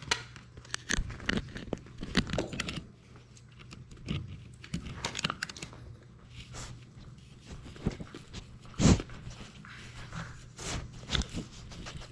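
Labrador puppy nosing and mouthing a GoPro right at the microphone: irregular scrapes, clicks and knocks against the camera housing, with a louder knock about nine seconds in.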